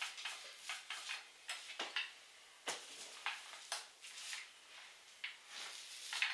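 Paint roller spreading wet RedGard waterproofing membrane: a run of short, irregular strokes, several a second.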